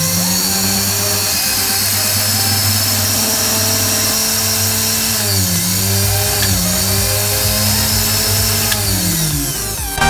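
Electric sewing-machine motor running under a foot-pedal speed controller, its pitch dipping and rising several times as the pedal is pressed and eased, then slowing down near the end. The repaired pedal now completes the circuit under light pressure.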